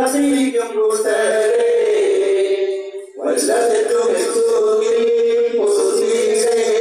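Male singing in long held notes, breaking off briefly about three seconds in.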